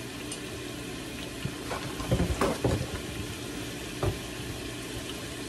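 Fries deep-frying in a pot of hot oil, a steady sizzle. Paper towel rustling and handling sounds about two to three seconds in, and a short knock just after four seconds.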